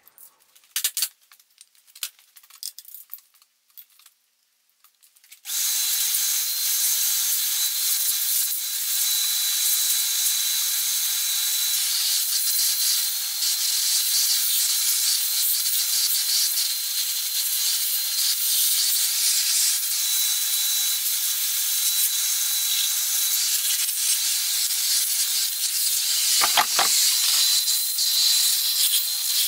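A few light metal clinks and knocks, then about five seconds in a shop vacuum switches on abruptly and runs steadily with a hiss and a thin high whine, cleaning metal chips off a milling machine table. Near the end there is a brief clatter.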